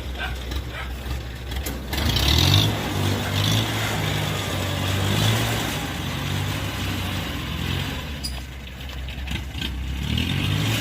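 Kubota combine harvester's diesel engine running, revving up about two seconds in, then holding steady with a dip and a rise again near the end.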